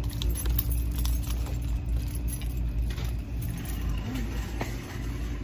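Handling noise: a phone's microphone rubbing and brushing against long hair and a jacket while it is carried, a low rumble with scattered small clicks and rustles.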